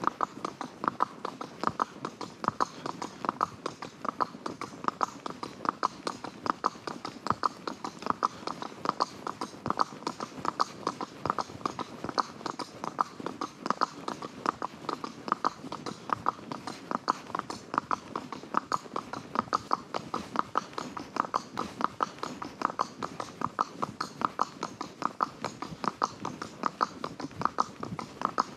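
A ridden horse's hooves clip-clopping in a steady, even rhythm, about two loud hoofbeats a second, with no change in pace.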